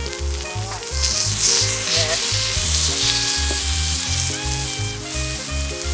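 Steak pieces sizzling on a hot rock salt plate, with background music and a pulsing bass underneath.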